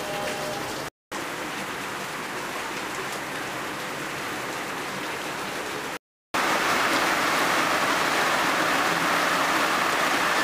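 Steady rain falling. It cuts out to silence twice, briefly, about a second in and about six seconds in. After the second break the rain is louder and heavier.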